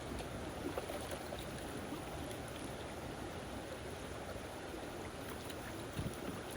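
Creek water sloshing and splashing as a gold pan of gravel is worked in the stream, with small clicks of stones and a soft knock near the end.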